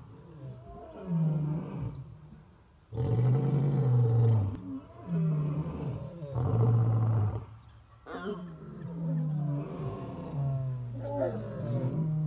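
Lions roaring: long, deep roars of about a second each, repeated every second or two, giving way to a quicker run of shorter roars in the last third.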